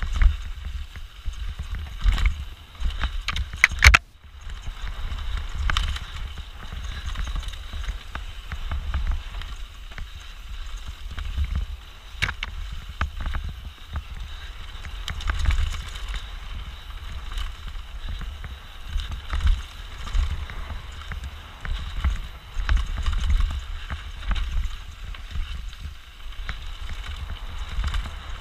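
Mountain bike descending a rough trail at race speed, heard from a camera mounted on the rider: continuous rattling of the bike and tyre noise over a steady low rumble, with a cluster of loud knocks about two to four seconds in.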